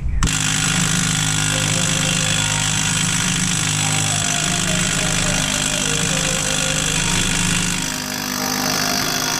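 Impact wrench hammering steadily on a front-hub axle nut, with a brief dip near the end.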